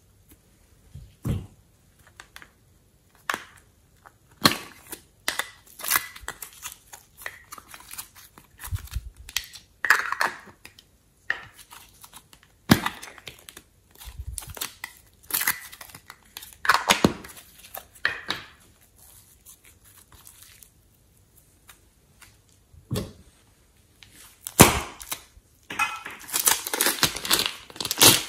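Slime squeezed and pulled by hand, making irregular sticky clicks and pops, with plastic slime containers handled. Near the end a thin plastic piping bag crinkles densely as clay is squeezed out of it.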